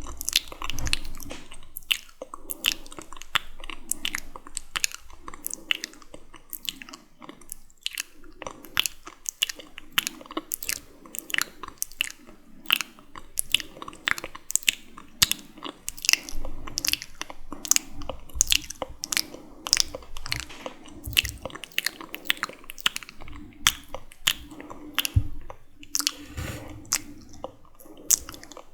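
Close-miked wet, sticky mouth sounds: lip and tongue clicks and smacks in an irregular run of several a second.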